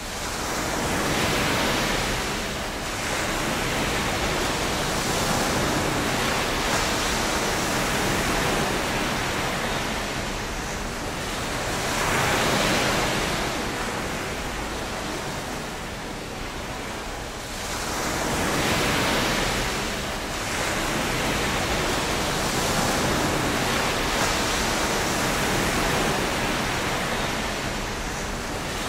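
Sea waves washing in: a steady rushing noise that swells and eases every several seconds.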